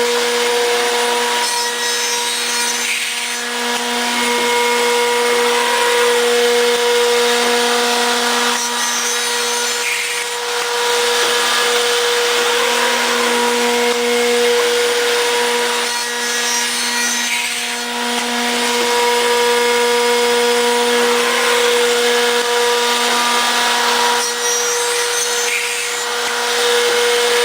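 CNC round end tenoner at work: its spindle motors hum steadily while the tenoning cutters machine wooden parts. The cutting noise eases briefly and builds again every six or seven seconds.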